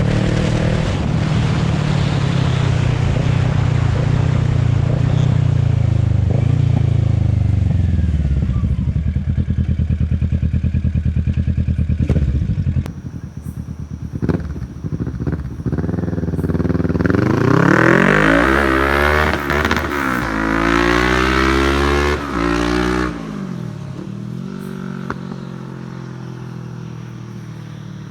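Kawasaki Ninja 650 parallel-twin engine running through a short straight-pipe GP exhaust with no muffler core. Its note sinks slowly through the first part, then revs rise and fall sharply twice about two-thirds through before settling to a lower steady note.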